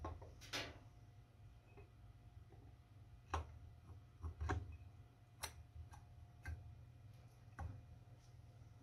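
Faint, scattered metal clicks and knocks, about one a second, as a Honda 125 cc motorcycle engine's cylinder block is worked down by hand over the studs and piston rings.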